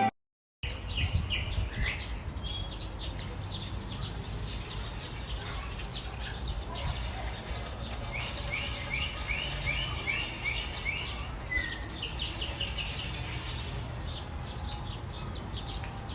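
Birds chirping and singing, with a run of about eight quick, evenly repeated notes partway through, over a steady low rumble of background noise.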